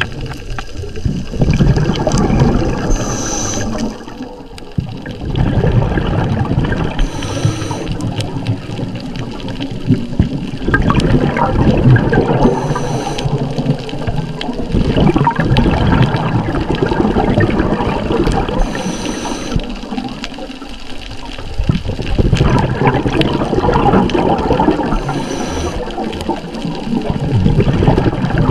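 Scuba regulator breathing: a short hiss of inhalation about every five to six seconds, with loud gurgling rushes of exhaled bubbles in between.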